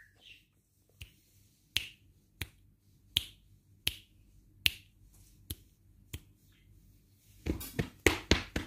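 Fingers snapping to call a cat: single sharp snaps about every second, then a quicker run of snaps near the end.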